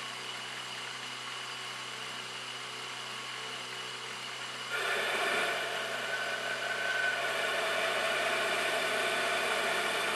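Logan lathe running with a steady hum. About halfway through, a boring bar starts cutting inside the bore of the spinning cast-iron blank, adding a louder, rougher cutting noise that carries on steadily.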